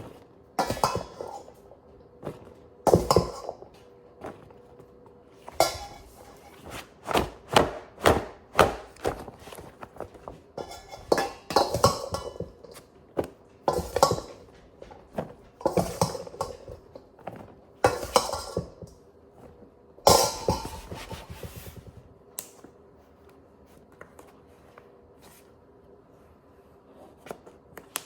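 Kitchen clatter: a run of knocks and clinks of dishes, utensils and containers being handled and set down, thinning out after about 22 seconds, over a faint steady hum.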